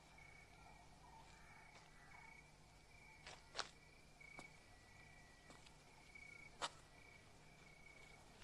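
Faint crickets chirping at night, a steady run of short high chirps repeated about once a second. Two sharp clicks stand out, a little over three seconds in and again three seconds later.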